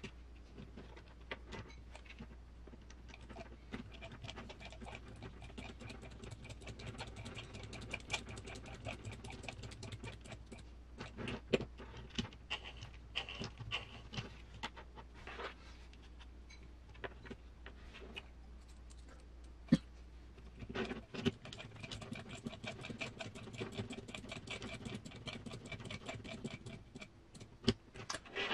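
Light, irregular clicks and taps of small RC parts being handled and fitted as the driveshafts go onto the transmission of the 1/10 crawler kit. A faint low hum stops about three-quarters of the way through.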